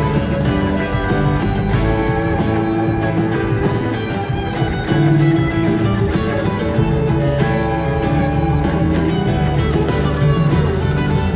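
A live rock band plays a steady, continuous jam with guitar to the fore.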